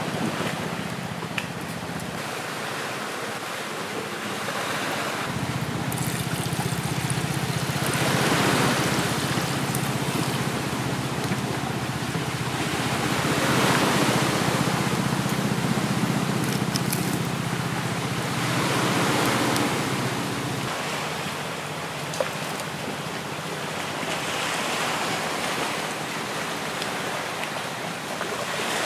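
Sea waves washing onto the shore: a steady rushing that swells and fades every few seconds.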